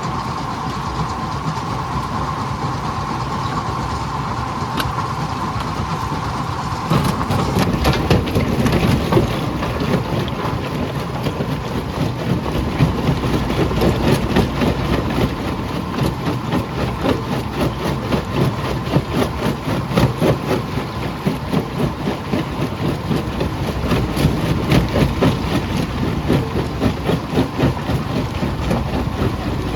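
Jaw crusher running with a steady hum; about seven seconds in, rapid irregular cracking and knocking starts as stone is broken between the jaws, and it keeps on.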